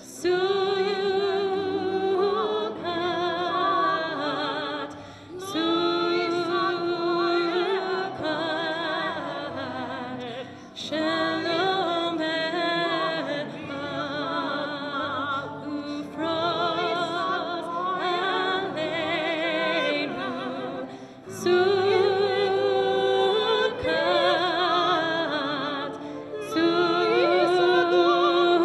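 Large mixed choir of adults and children singing a Hebrew song in unison-like phrases a few seconds long, with short breaks between the phrases.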